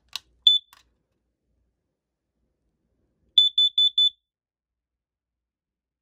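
Kidde digital-display carbon monoxide alarm under test: a click, a single short high beep about half a second in, then about three seconds later four quick beeps in a row, the CO alarm's four-beep warning pattern.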